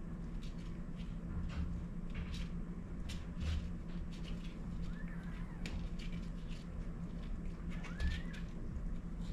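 Newborn kittens giving a few faint, short, squeaky mews, about five seconds in and again near the end. Underneath are small clicks and rustles from the mother cat moving on the bedding, over a steady low hum.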